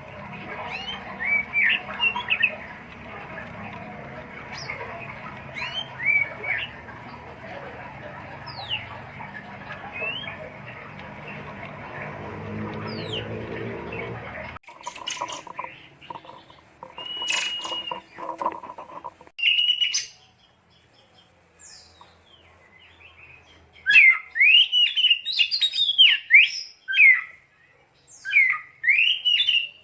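Songbird singing: short chirps and whistled notes over a steady background noise, then, after a brief quiet pause, a loud run of rapid chirps in the last few seconds.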